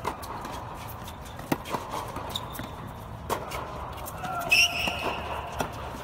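Tennis ball struck by racquets during a doubles rally: sharp pops about a second and a half apart, with a brief high squeak about four and a half seconds in.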